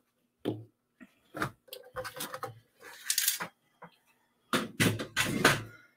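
Cardstock and crafting tools being handled: a scored sheet of cardstock lifted off a scoring board and moved onto a grid mat, with a scoring stylus set down. It makes a scattered run of short paper rustles, slides and light knocks, busiest near the end.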